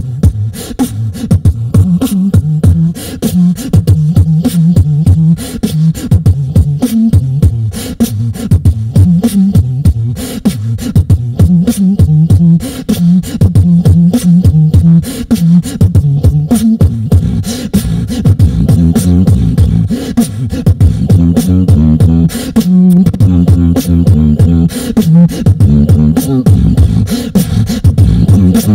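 Solo beatboxer performing into a handheld microphone through a PA: a fast, dense rhythm of vocal kick, snare and hi-hat clicks over a deep, pitched bass line that steps between notes.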